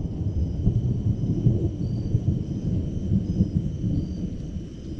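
Thunder from a thunderstorm, a low rumble that slowly fades.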